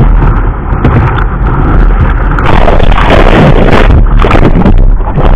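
Breaking surf rushing over a kayak's deck, heard loud and close from a deck-mounted camera, with water buffeting the microphone. About halfway through the rush turns fuller and harsher as water washes over the camera.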